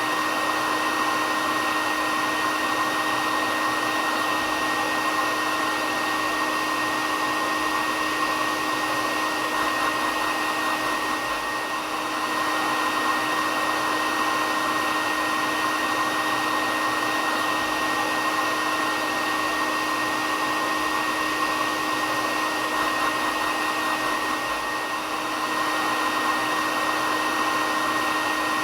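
Hair dryer running steadily, a constant rushing blow of air with a steady hum and a thin high whine held at one pitch.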